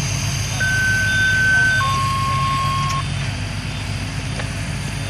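An engine running steadily, with a faint short beep repeating about every two-thirds of a second. About half a second in, a clear high electronic tone sounds for about a second, then steps down to a lower tone for another second.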